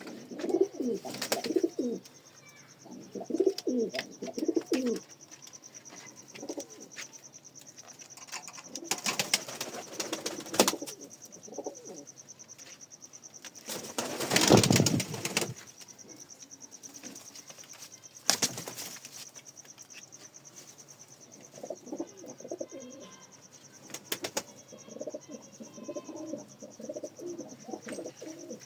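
Domestic pigeons cooing in repeated low rolling calls, with a few bursts of wing flapping in the middle.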